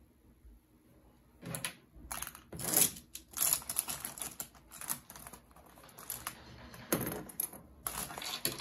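Plastic ballpoint pens and small desk items clicking and clattering as they are gathered up and put into a pencil case, with some rustling. It starts about a second and a half in, in irregular bursts.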